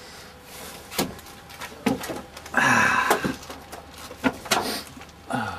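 A few sharp knocks and clunks, with a louder rustling burst about two and a half seconds in: handling noise from the camcorder as it is moved around in a cramped helicopter cockpit.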